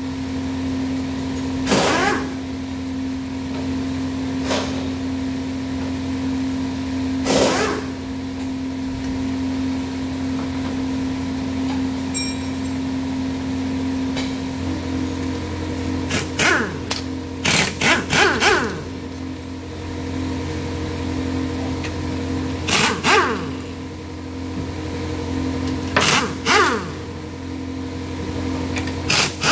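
Steady workshop machinery hum, a little louder from about halfway through, with sharp metallic clinks and knocks from tools on a car engine being dismantled. The clinks come singly or in quick pairs, several of them in the second half.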